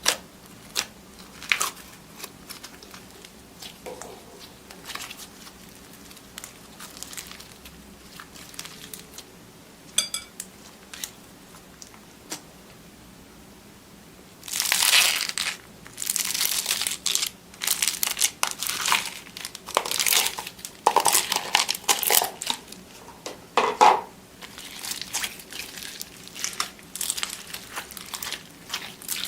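Crunchy slime being squeezed and pressed by hand close to the microphone: scattered small clicks and pops at first, then from about halfway dense bursts of crackling and crunching.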